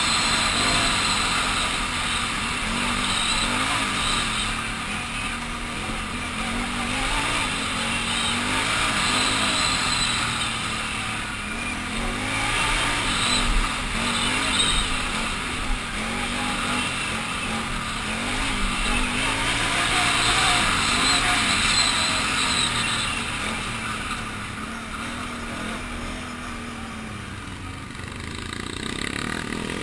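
Can-Am Renegade 800 ATV's V-twin engine running under way on a dirt trail, the revs rising and falling over and over with the throttle, over wind and chassis noise. It drops lower and quieter for a few seconds near the end, then picks up again.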